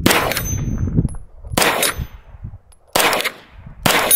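CZ Scorpion Evo 3 S1 9mm pistol firing four single shots about a second and a half apart. Each shot is followed by a brief, high metallic ring.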